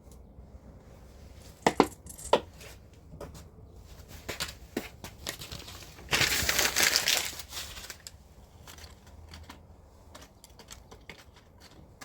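Dry kindling being handled and broken for a bonfire: a few sharp snaps, scattered crackles, and a louder crackling, crushing rustle about six seconds in that lasts a second or so.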